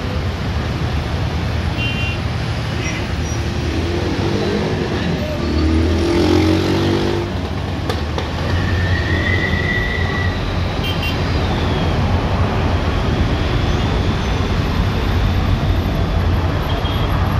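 Nepal Airlines Airbus A330's Rolls-Royce Trent 700 jet engines running at low thrust as the airliner rolls slowly on the runway: a steady rumble and rush of noise heard from a distance.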